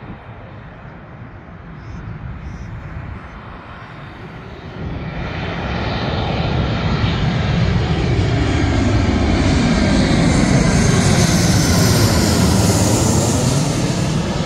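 Twin-engine jet airliner flying low overhead. Its engine noise swells louder from about a third of the way in and peaks near the end, with a high whine on top and a sweeping, wavering tone as it passes.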